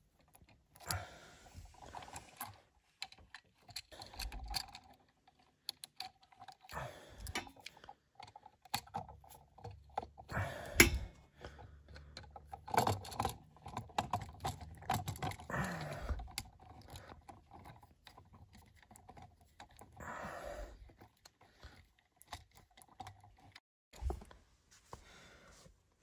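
Small clicks, taps and scrapes of needle-nose pliers and a screwdriver working a solid wire onto an electrical outlet's terminal screw, as the neutral wire is bent into a hook and screwed down. The sharpest click comes near the middle.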